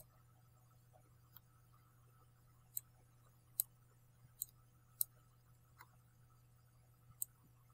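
A computer mouse clicking: about eight short, sharp clicks, irregularly spaced roughly a second apart, over a faint steady low hum.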